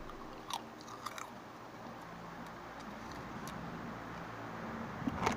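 A person chewing crunchy cheese-flavoured Clover chips, with a few sharp crunches in the first second and a half, then quieter chewing.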